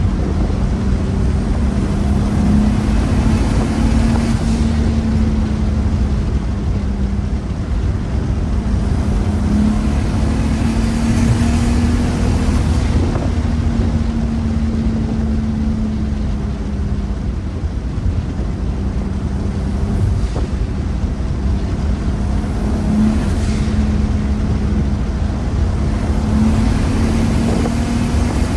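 Turbocharged VR6 engine and exhaust running with a steady drone, its pitch rising a little and easing back several times.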